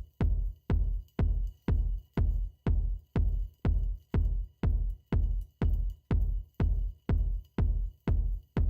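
Background electronic music with a steady, deep kick-drum beat, about two beats a second.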